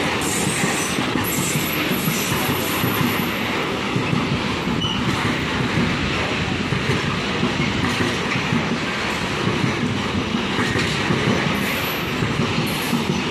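Container freight train rolling past: steel wheels of the loaded container flat wagons rumbling and clicking over the rail joints in a steady run. A thin high squeal rises above it for a couple of seconds near the start.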